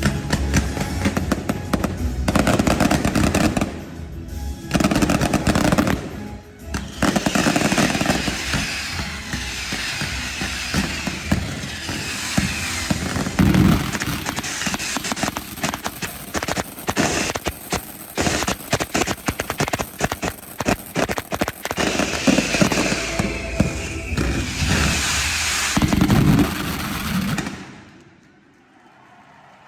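Pyromusical fireworks show: music plays loudly over bursts of fireworks. In the middle there is a long, rapid rattle of bangs in quick succession. Music and fireworks cut off together near the end.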